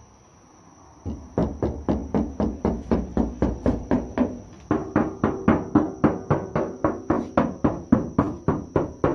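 Bare, unlined sheet-metal side panel of a Toyota HiAce van being rapped repeatedly, about four knocks a second, each ringing and booming hollowly. The panel has no sound-deadening material on it yet, so it resonates freely; the knocking shows how much the untreated body echoes.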